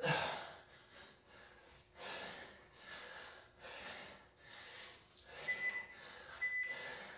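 A man breathing hard with exertion during push-ups, with short forceful breaths roughly once a second. Near the end, short high beeps about a second apart from an interval timer counting down.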